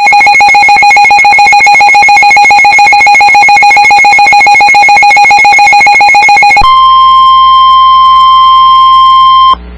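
Emergency Alert System alert tones. A loud, rapidly pulsing electronic tone lasts about six and a half seconds, then switches to a single steady tone that holds for about three seconds and cuts off suddenly.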